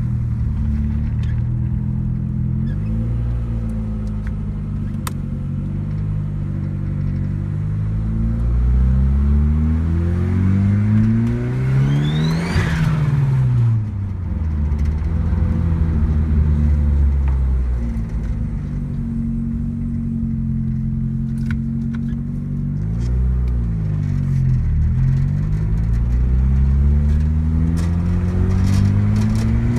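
1991 Eagle Talon TSi's turbocharged 6-bolt 4G63 four-cylinder engine pulling up through the revs, with a rising turbo whistle about twelve seconds in. It then lifts off with the pitch dropping sharply and the turbo fluttering, and the revs climb and fall again later.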